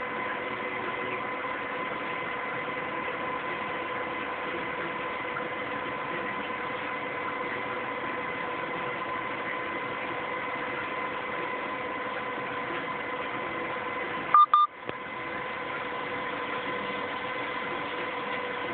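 Steady background hiss with a thin, steady whine of several pitches, like electrical noise. About fourteen seconds in comes a short loud burst, after which the sound dips for a moment.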